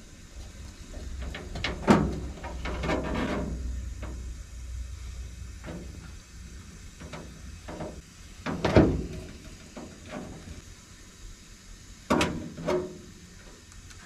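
Hand crimping tool and wire connectors being worked on furnace wiring: several separate clicks and clunks, the loudest about two-thirds of the way through.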